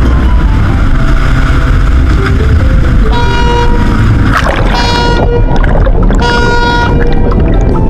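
Ship sound effect: a steady low engine rumble with rushing water, and three short horn toots about a second and a half apart in the second half.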